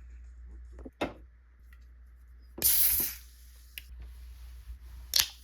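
Kitchen handling sounds: a sharp knock about a second in, a short loud hiss a little past halfway, and another sharp knock near the end.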